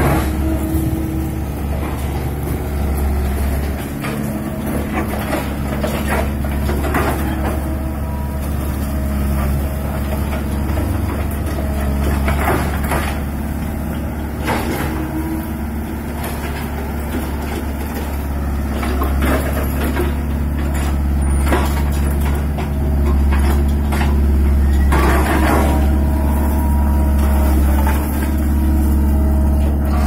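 A small tracked excavator's diesel engine runs steadily under load as it digs and lifts brick rubble. Now and then chunks of rubble knock and clatter. The engine gets louder about three quarters of the way through.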